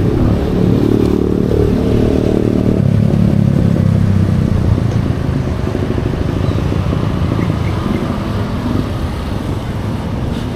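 Suzuki Burgman Street 125 EX scooter's single-cylinder engine running under way. Its note eases off about halfway through as the scooter slows almost to a stop.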